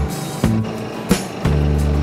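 Background music: a bass line of held low notes that change every second or so, with drum and cymbal hits.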